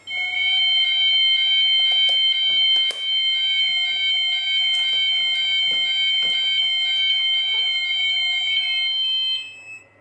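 Gent fire alarm sounders sounding a continuous high, slightly wavering electronic tone, set off by an activated manual call point. It cuts off about nine seconds in as the alarm is silenced.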